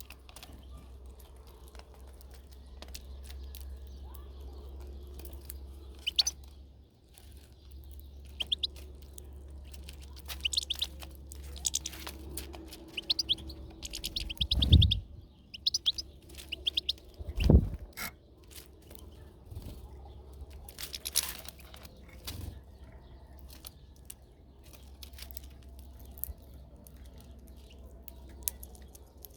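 European goldfinches calling, with short, quick twittering chirps scattered throughout. Two loud, dull thumps come about halfway through, under a steady low rumble.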